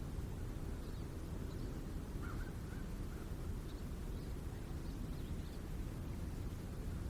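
Rural outdoor ambience: a steady low rumble of distant light road traffic, with a few faint bird calls, a short cluster about two to three seconds in and scattered high chirps.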